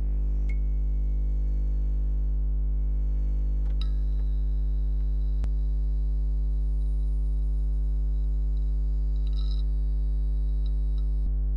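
A steady, low electrical hum with a few faint clicks and crackles over it, cutting off abruptly at the end.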